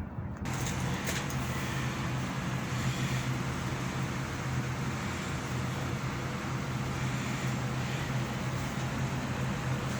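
Midea ZenAire ductless mini-split air conditioner's outdoor condensing unit running under its commissioning test: a steady fan rush over a low, even compressor hum that sets in abruptly about half a second in.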